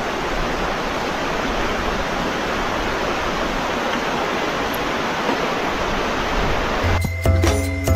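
Rushing river water: a steady, even rush with no pitch. Background music with a deep bass comes back in near the end.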